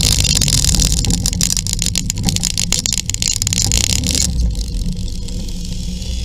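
Motor scooter engine running under heavy wind rush and buffeting on the onboard microphone. About four seconds in, the wind noise cuts away as the scooter slows, leaving the engine's low steady note.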